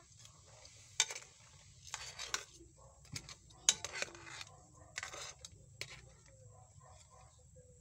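A spatula scraping and clattering against a pan while stirring shrimp and crabs, in several separate strokes over a few seconds.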